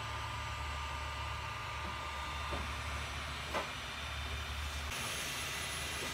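Creality Ender 3D printer running a print: a steady whir and hiss of its fans with a low motor hum, and a couple of faint clicks. About five seconds in the low hum drops away and the hiss turns brighter.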